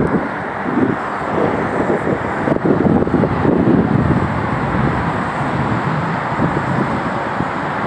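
Outdoor wind buffeting the phone's microphone in uneven gusts over a steady rumble of city traffic far below.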